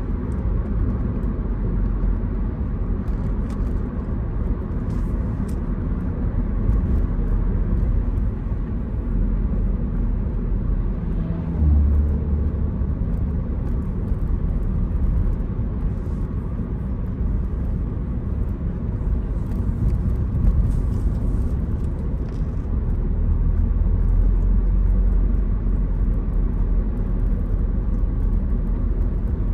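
Road and engine noise inside a moving car's cabin: a steady low rumble from the tyres and drivetrain on an open suburban road. It swells briefly about twelve seconds in and grows heavier for a few seconds near the end.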